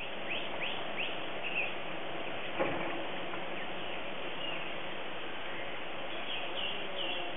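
Outdoor ambience: birds chirping in short, falling notes over a steady background hiss, with a single knock about two and a half seconds in.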